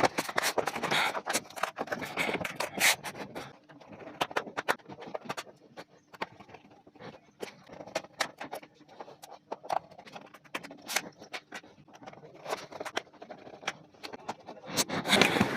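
Plastic laptop bottom cover being pressed into place and its small screws driven in with a screwdriver: a run of light clicks and scrapes, thickest in the first three seconds, then scattered.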